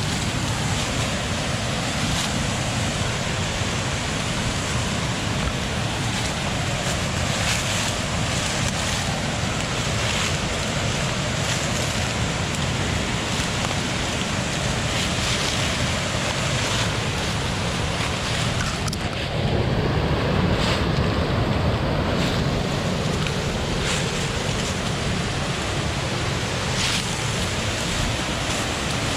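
Waterfall: steady rushing of falling water, changing suddenly about two-thirds of the way through to a slightly louder, deeper rush.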